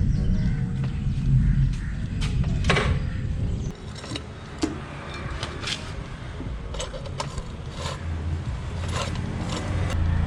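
Clunks and knocks from a motorcycle being moved, over a low rumble that drops away about four seconds in. Scattered sharp clicks follow.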